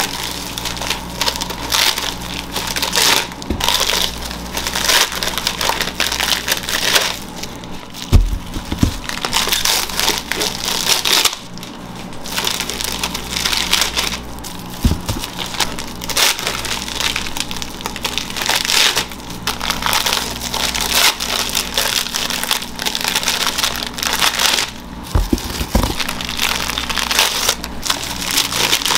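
Irregular scraping, crunching and crackling of food-preparation handling at a snack shop's counter, with a few dull thumps about 8, 15 and 25 seconds in.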